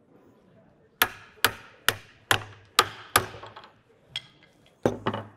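Hammer striking the metal striking cap of a Milwaukee bevel edge chisel driven into a wood block: six sharp blows about half a second apart, a few light taps, then two more blows near the end, each with a brief ring.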